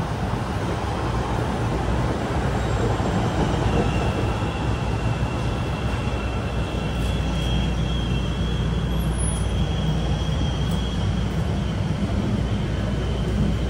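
CTA L 5000-series rapid-transit train pulling into a platform and slowing to a stop: a steady rumble of wheels and motors. A thin, high squeal joins in about three seconds in and fades near the end.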